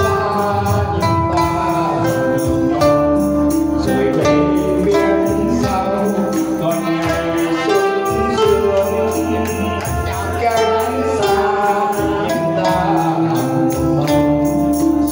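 Live band music, an electronic keyboard and guitar playing a slow ballad, with a tambourine jingling in a steady beat and a man singing into a microphone.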